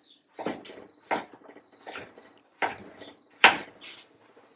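A chef's knife slicing through a raw sweet potato and striking the cutting board, six cuts at a steady rhythm of roughly one every 0.7 s, the loudest about three and a half seconds in.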